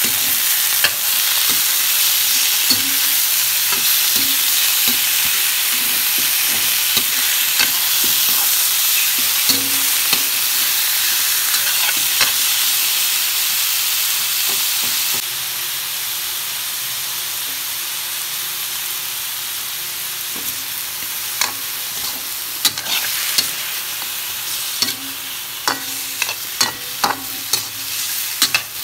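Chicken pieces with sliced onion and ginger sizzling as they sauté in a hot pan, stirred with a spatula that scrapes and knocks against the pan. The sizzle eases about halfway through, and the spatula knocks come often near the end.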